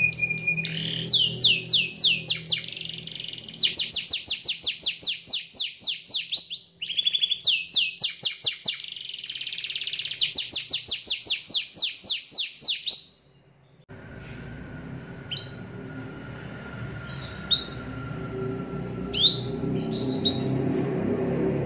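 Canary singing in phrases of fast, rapidly repeated trill notes for about thirteen seconds. The song then stops, and over a low background hum only a few short, sharp chirps are heard.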